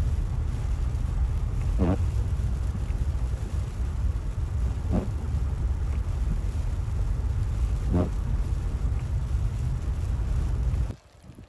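Vehicle driving along a road: a steady, loud low rumble of tyres and engine, with a short sound repeating about every three seconds. It cuts off abruptly near the end.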